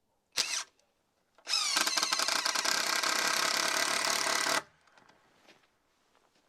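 Power drill: a short blip of the trigger, then about three seconds of steady running after spinning up, stopping abruptly.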